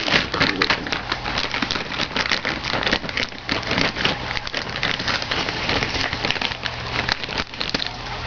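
Packaging being handled and opened: cardboard and paper rustling and crackling without a break.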